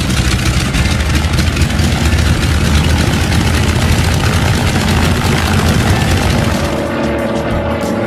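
Propeller airplane engines droning steadily, with a low rumble, as the plane flies. Background music comes in near the end.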